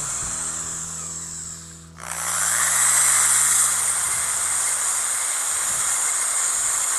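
Electric angle grinder driving a homemade soil auger: the motor cuts out briefly and starts again about two seconds in, spinning up with a rising whine, then runs steadily as the auger bores into hard, compacted earth.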